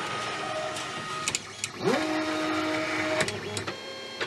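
Prusa i3 3D printer's stepper motors whining as it auto-homes. The axes drive one after another, each a steady whine at its own pitch, one gliding up to speed about two seconds in, with short clicks between the moves.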